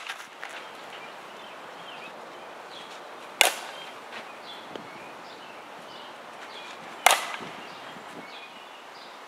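Softball bat striking pitched balls twice, two sharp cracks about three and a half seconds apart, each with a short ringing tail.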